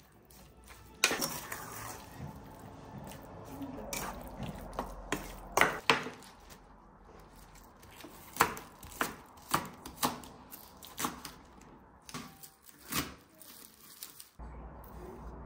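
Chef's knife slicing spring onions on a wooden cutting board, the blade knocking the board about once a second in the second half. Before that, sharp clatters and knocks of kitchen utensils against the pan and worktop, the loudest about a second in.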